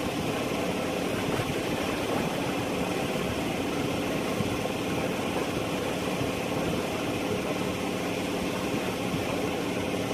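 An engine running at a steady speed, a constant hum that holds its pitch throughout.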